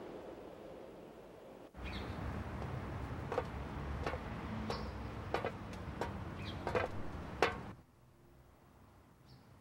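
Outdoor ambience: a steady low rumble with short bird chirps scattered through it. It cuts in suddenly about two seconds in, after a fading wash of noise, and gives way to quiet room tone near the end.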